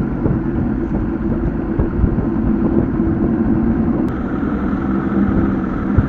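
Bass boat's outboard motor running steadily under way, with the rush of wind and water around it.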